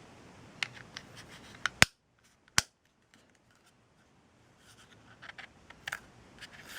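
Sharp plastic clicks from the remote control's case and buttons being handled and pressed together: a quick run of clicks, the loudest just under two seconds in and another about half a second later, then a lull and a few fainter clicks near the end.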